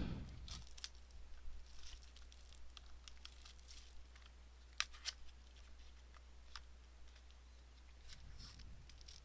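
Faint crinkling and tearing of a sealed trading-card box and its wrapping being opened by hand, with scattered sharp ticks and crackles.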